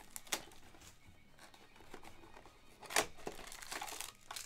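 Clear plastic shrink-wrap being torn and crinkled off a cardboard box of trading cards, with two sharp snaps, the louder one about three seconds in.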